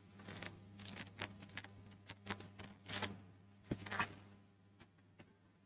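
Quiet pause: a low steady hum with scattered faint rustles and clicks.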